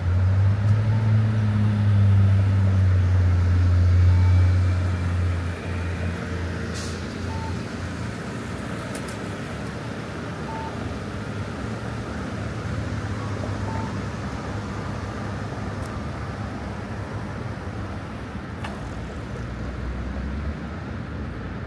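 Road traffic: a vehicle engine rumbles close by for the first five seconds, then settles into a steady hum of city traffic. A faint short beep repeats about every three seconds.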